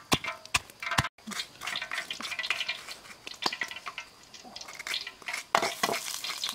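Food-preparation clatter: sharp taps in a stone mortar about twice a second, then a busier run of clinks, knocks and scraping from cooking utensils, with a louder knock or two near the end.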